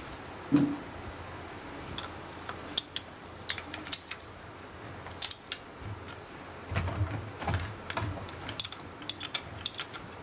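Spanner clicking and scraping on steel nuts as the bolts holding a submersible pump's suction casing to its motor are tightened: irregular metallic clicks and ticks, with a louder knock about half a second in and a quicker run of clicks near the end.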